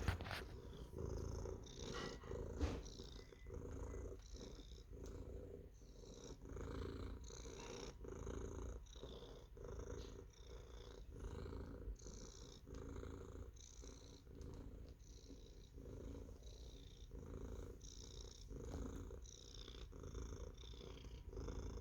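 Domestic cat purring steadily, the purr swelling and fading about once a second.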